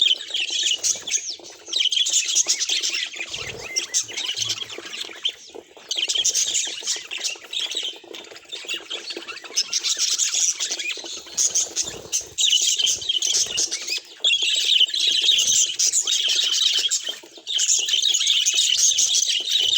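Budgerigars chattering and warbling: rapid, overlapping high chirps and squawks that come in bouts of a few seconds, with short lulls between them.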